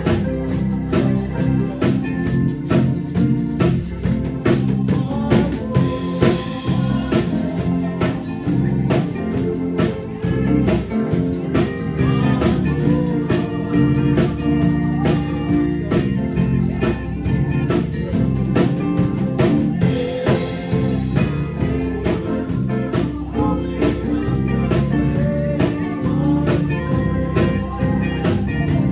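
Live gospel music: a man sings into a microphone while shaking a tambourine, over a band with a steady beat.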